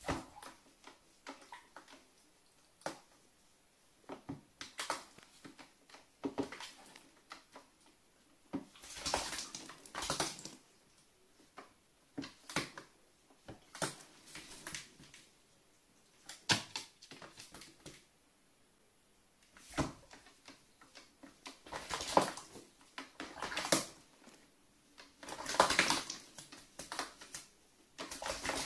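Carrion crow bathing in a plastic bucket of water: irregular bursts of splashing and wing-flapping, with short knocks in between and quiet gaps. The longest splashing bursts come about a third of the way in and again near the end.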